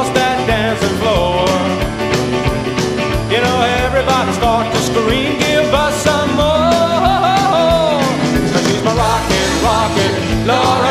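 Rock and roll song with a singing voice over a band with a steady drumbeat.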